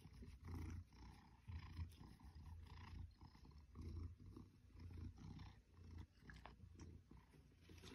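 Maine Coon cat purring softly while being stroked, a low rumble that swells and fades about once a second with her breathing.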